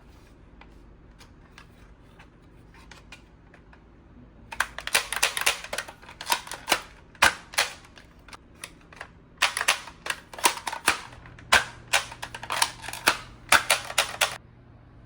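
Toy gun clicking and snapping in rapid, uneven runs of sharp clicks: a few faint clicks at first, then two long bursts, one starting about four and a half seconds in and one near ten seconds.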